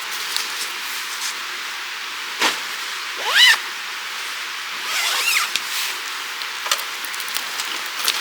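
Steady rushing water of a mountain stream, with scattered small clicks and two short calls that rise and fall in pitch, about three and five seconds in.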